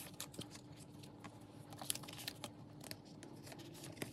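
Faint rustling and scattered light clicks of paper cards being slid out of and shuffled into the clear plastic pocket sleeves of a binder.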